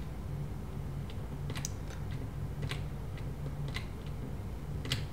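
About half a dozen single computer-keyboard clicks, spaced roughly a second apart, over a low steady hum.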